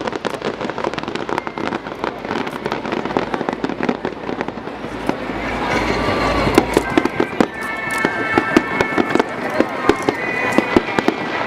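Fireworks display: a dense run of crackling pops and bangs, growing louder and busier about halfway through, with a few high steady tones joining in near the end.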